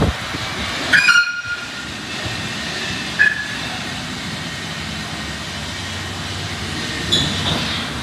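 Ryko SoftGloss Maxx 3 rollover car wash machine running: a steady rushing hiss with brief high squeals about a second in, again about three seconds in, and near the end.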